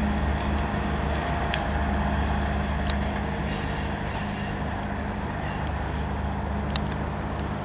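Long Island Rail Road diesel locomotive's engine running steadily with a low drone, a few light clicks over it.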